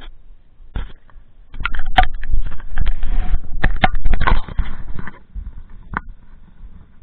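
Wind buffeting the microphone in a loud gust for a few seconds, with scattered sharp knocks and clicks.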